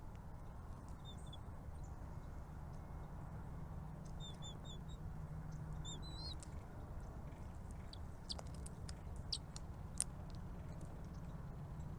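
Faint high chirps from small birds: a quick run of four short notes about four seconds in, and a couple more about two seconds later, over a steady low rumble. A few sharp clicks follow, the loudest about ten seconds in.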